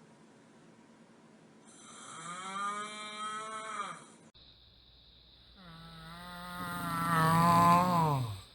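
A man snoring with a drawn-out, cow-like moo, twice: one about two seconds in, and a longer, louder one near the end. Each rises, holds its pitch and then falls away.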